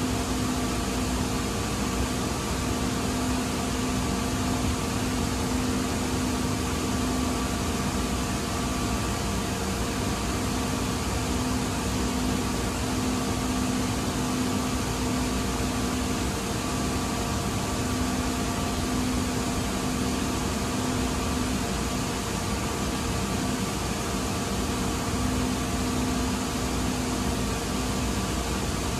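Steady hiss and hum of a 2023 Siemens LRV4 light rail car's ventilation and onboard equipment, heard inside the passenger cabin while the car stands still. A few steady tones sit over the even rushing noise.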